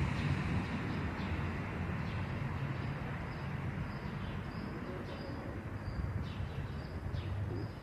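Steady low rumble of traffic, with small birds chirping faintly now and then in short high notes.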